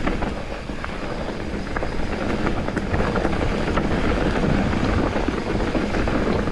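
Wind buffeting a helmet or chest action-camera microphone as a mountain bike rolls down a dirt trail, its knobby tyres running over the ground with scattered rattles and clicks from the bike. The noise grows louder as the bike picks up speed.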